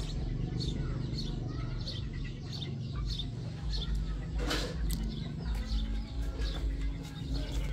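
Birds chirping in short, evenly repeated calls, about two or three a second, over a steady low rumble, with one sharp knock about four and a half seconds in.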